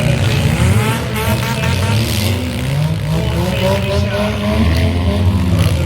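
Demolition derby car engines running loudly, with pitch that rises and falls, and voices mixed in.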